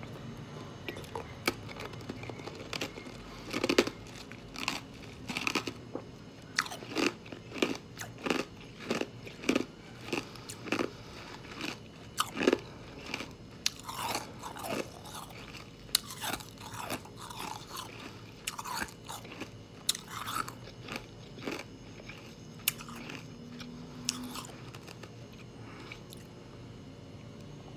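A mouthful of ice being bitten and chewed close to the microphone, giving irregular sharp crunches that come thickest through the middle and thin out near the end.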